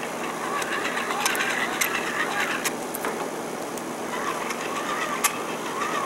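Hand-cranked Biddle megger's generator whirring as its crank is turned, with a faint wavering whine and a few light clicks, while it tests the compressor wiring's insulation to the frame.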